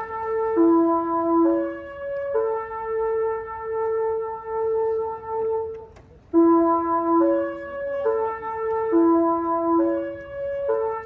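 Meitetsu 2000-series μSKY train's music horn playing its melody: a run of stepped, held horn notes with one long wavering note in the middle. It breaks off about six seconds in, then the tune starts again.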